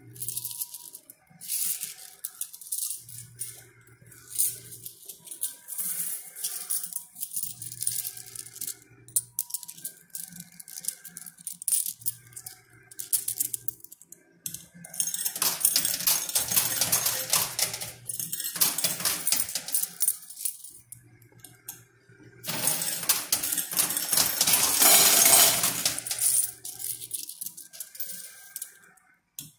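Quarters clinking and clattering in a coin pusher machine as coins are dropped in and slide on the metal coin bed, with two longer stretches of heavy clattering past the middle. A low hum from the machine comes and goes every four to five seconds.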